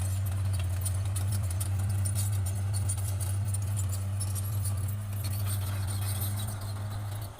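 Bulldozer's diesel engine running with a steady low drone, with light metallic clinking and rattling throughout. The sound cuts off abruptly at the very end.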